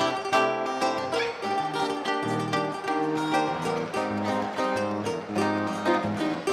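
Live samba band playing an instrumental passage: strummed cavaquinhos and acoustic guitars over a steady drum beat, with no singing.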